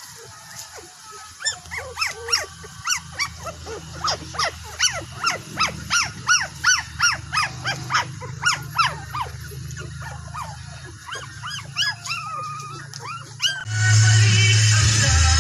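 Puppy yelping and whining in a rapid run of short, high, rising-and-falling cries, over a low steady hum. Loud background music cuts in near the end.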